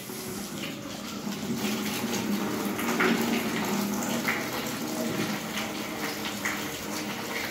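Water running steadily from a tap into a plastic basin in a sink, with hands working under the stream while washing dishes.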